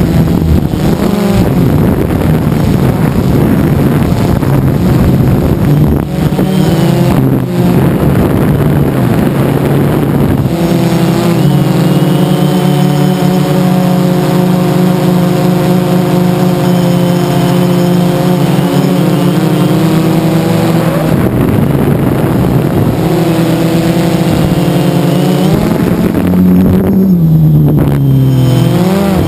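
DJI Phantom 2 quadcopter's motors and propellers humming loudly right by the onboard camera, a steady buzz whose pitch slides up and down several times as the motors speed up and slow down. Rushing noise lies over it in the first part.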